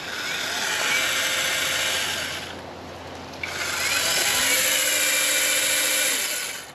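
Imoum 6-inch battery mini chainsaw with a 21 V brushless motor whining as it runs, started twice: a run of about two and a half seconds, a brief stop, then a second run of about three seconds that cuts off near the end.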